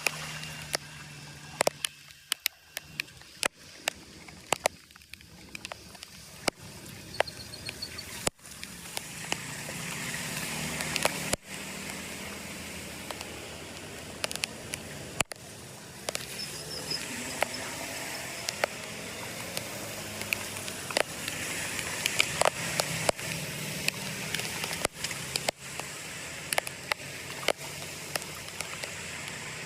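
Floodwater rushing and gurgling as it drains through a cleared culvert or drain, with many short sharp clicks and knocks over it. The flow gets louder about a third of the way in.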